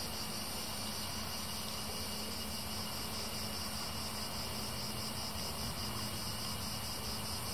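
Steady, high-pitched chirring of insects over a constant faint hiss, with no distinct events.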